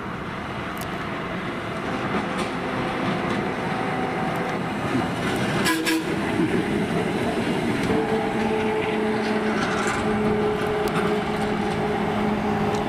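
Gomaco-built replica heritage electric streetcar running along its track, with a few clicks from the rails and a short horn toot. Steady tones at two pitches come in over the running sound in the second half.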